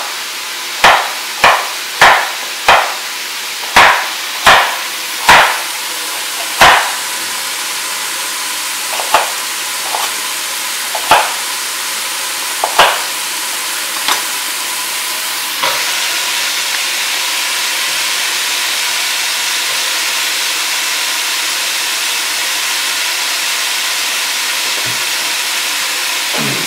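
Chef's knife slicing carrots on a wooden cutting board: a sharp knock of the blade on the board about every two-thirds of a second, then a few scattered knocks. Underneath, vegetables sizzle in a pot, the hiss growing louder about halfway through and then holding steady.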